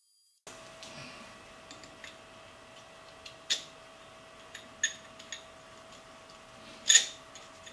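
Sharp metallic clinks and taps of a machined steel collar being slid onto and test-fitted over a turned workpiece held in a lathe chuck. Several light clicks and three louder clinks, the loudest near the end, over a faint steady hum.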